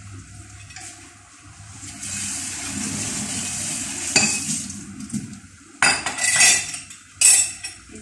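Kitchen tap running into a stainless steel sink for about two seconds, then dishes and utensils clattering and clanking in the sink, with the loudest clanks near the end.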